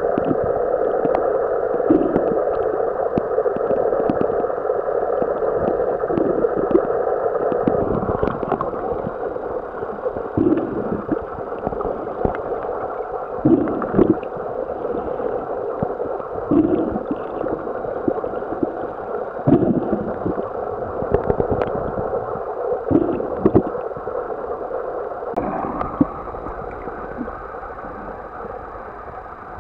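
Muffled underwater noise picked up by a camera submerged in a lake: a steady hum with scattered short, low thumps, changing in character a few times.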